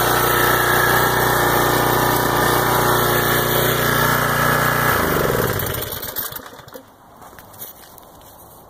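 Small gas engine of a pressure washer, freshly rebuilt carburettor, running at a steady speed. About five seconds in it shuts off and winds down to a stop over a second or so.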